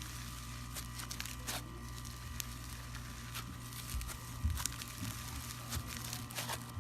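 Slime being squeezed and worked by hand, making scattered small crackles and pops over a steady background hum.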